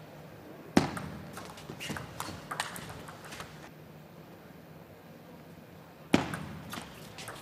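Table tennis ball clicking against rackets and table in short runs, with two louder sharp knocks, about a second in and near the end.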